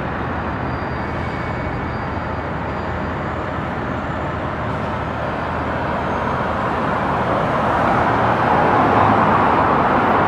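City street traffic: a steady hum of passing cars and buses at an intersection, growing louder over the last few seconds as a vehicle goes by close.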